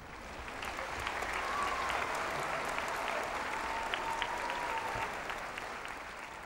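Audience applauding at the end of the music, the clapping swelling over the first second or two, holding, then dying away toward the end.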